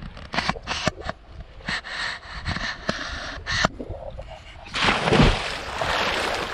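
A person jumps into a river pool right beside the camera with a loud splash just after five seconds in, followed by churning, spraying water as they start to swim. Before that, small sharp slaps and clicks of water lapping at the camera, which sits at the surface.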